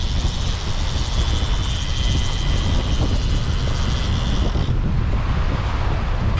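Fishing reel's ratchet clicker buzzing rapidly as line runs off it, stopping about four and a half seconds in, over steady wind noise on the microphone.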